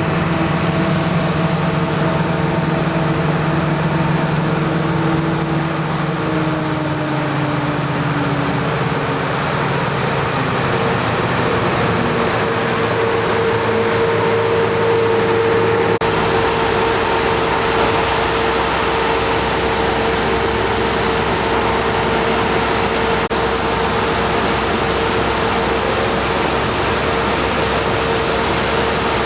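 Heavy farm machinery engines running steadily: a diesel drone with a steady whine over a rushing noise. One engine note falls in pitch several seconds in, and the sound changes abruptly about halfway through.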